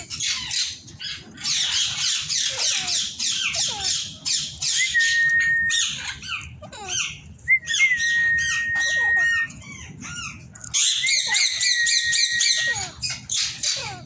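A flock of caged Alexandrine parakeets screeching and chattering in loud, rapid bouts, with three long, level whistles among the calls.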